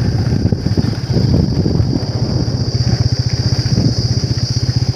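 Motorcycle engine running steadily while riding, heard from on the bike, with a fast even beat of the firing.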